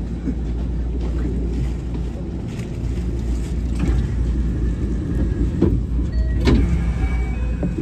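521 series electric train standing at a station, its equipment giving a steady low hum and rumble, with two sharp knocks about five and a half and six and a half seconds in and a few faint steady tones near the end.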